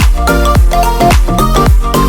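Background electronic dance music with a steady beat, a kick drum about twice a second under a synth melody and bass.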